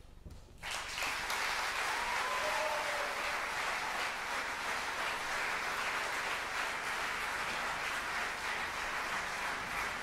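Concert audience applauding, the clapping breaking out suddenly about half a second in and staying steady and full throughout, with a brief call from the crowd about two seconds in.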